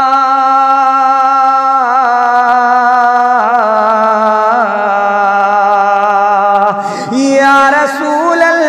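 A naat singer's voice holds long wordless notes with ornamented turns over a steady backing drone, moving to a new phrase about seven seconds in.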